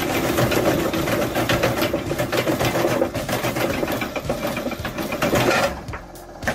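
Homemade electric-motor branch chopper cutting a pole into short firewood pieces: a fast, even clatter of chopping strokes over the motor's steady hum. The clatter drops away sharply about six seconds in.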